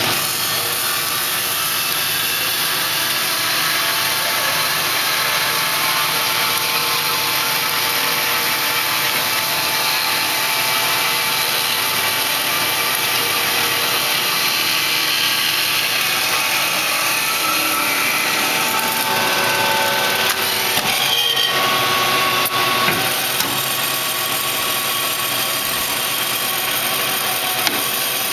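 2000 Marvel-Spartan automatic horizontal bandsaw running steadily, its band blade sawing through a wooden block with a continuous hiss over the hum of the machine.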